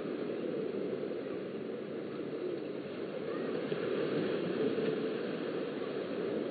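Steady beach ambience: small waves washing onto the sand, swelling slightly a little past the middle, with faint distant voices.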